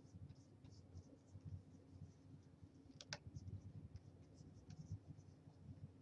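Near silence: faint room hum with light scratching and ticking of a stylus on a drawing tablet, and one sharper click about three seconds in.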